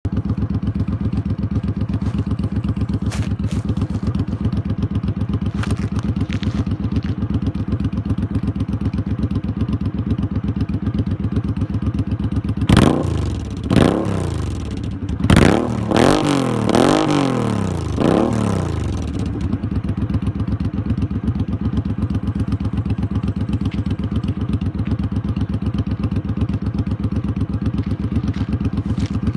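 Suzuki C50's V-twin engine through Road Burner 3-inch drag pipes, idling with a steady lumpy pulse, then blipped about five times in quick succession around the middle, each rev rising and dropping back before it settles to idle again.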